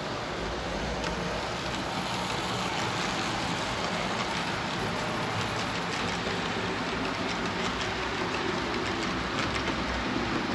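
Model trains running on the layout track: a steady rolling rush of small wheels on the rails, with faint scattered clicks.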